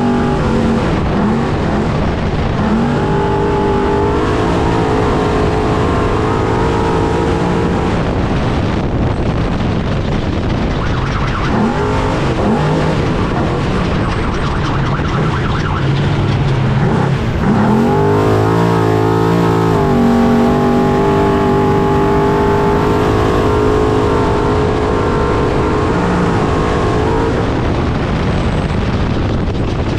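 Trophy truck's engine running hard at race speed, heard from on board, its revs rising and falling with a sharp swing in pitch about 18 seconds in, over a constant rough noise of the truck driving.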